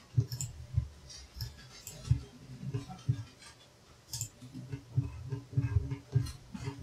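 Computer mouse clicking, a few sharp clicks spread unevenly through the stretch, with soft low bumps between them.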